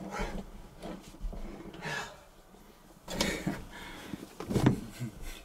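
Rustling and soft bumps of bedding being pushed through a pickup's rear sliding window into the cab, with a man's breathing. The sounds come in irregular handling noises, the loudest a little past halfway and again near the end.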